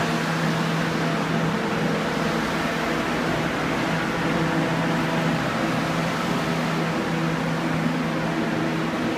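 Blue centrifugal "Gale Force" air mover blowing to dry a flooded basement floor: a steady whir with a low hum, holding constant.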